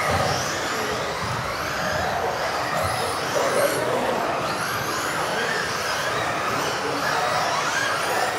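Several electric RC off-road cars racing together: overlapping high motor whines that rise and fall as the cars accelerate and brake, over a steady hiss.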